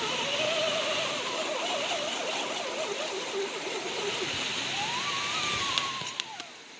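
Electric motor and gear train of a radio-controlled rock crawler whining as it creeps over tree roots, the pitch wavering with the throttle, over a steady hiss. Near the end the whine rises and falls, a few clicks sound, and it cuts off.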